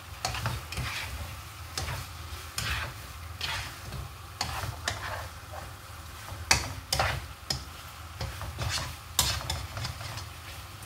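A plastic spatula stirs and scrapes chicken in a thick red sauce around a non-stick wok in repeated strokes, roughly one or two a second. The sauce sizzles faintly underneath as it cooks.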